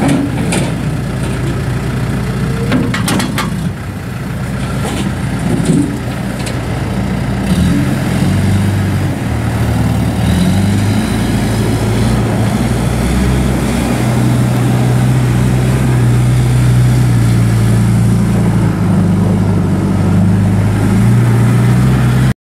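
Diesel engine of a 2007 John Deere 310J backhoe loader running steadily, its note shifting a few times. The sound cuts off abruptly near the end.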